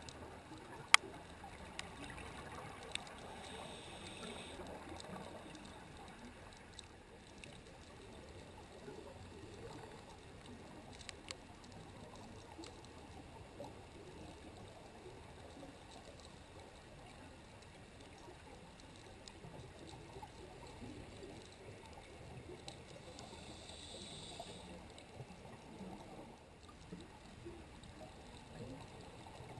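Underwater ambient noise heard through a seabed camera's housing: a low, steady rushing hiss with scattered clicks, one of them sharp about a second in.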